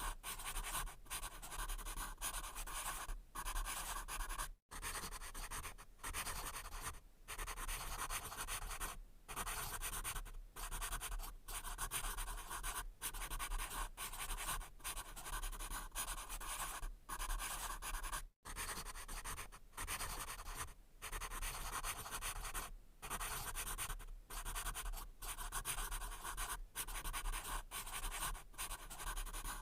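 Pencil writing on paper: a dry scratching that runs in short strokes, broken by brief pauses every second or so as the lead lifts.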